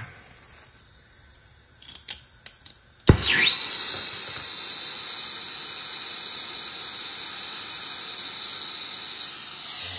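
Handheld gas torch being lit: a few faint clicks, a sharp pop about three seconds in as it ignites, then the flame burning with a steady hiss and a high, steady whistle.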